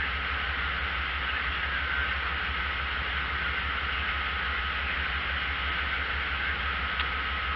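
Amtrak GE P42DC diesel locomotive idling while stopped: a steady hiss over a low rumble, with a faint steady whine.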